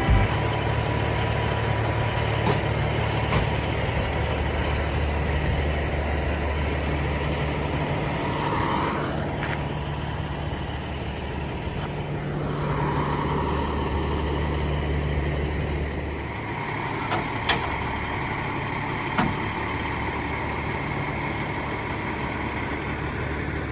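Semi truck driving down the road: a steady low engine drone under road noise, with a few light clicks.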